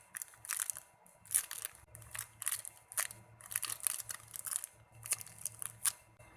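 Irregular crinkling and crackling handling noises as a pineapple-shaped squishy toy is turned over and squeezed in the hands.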